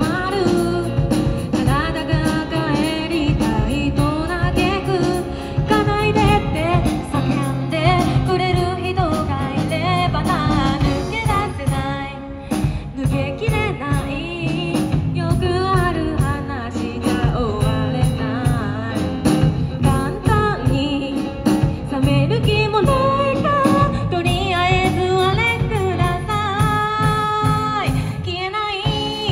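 Live band playing a song: a woman singing while she plays acoustic guitar, backed by electric bass and a drum kit.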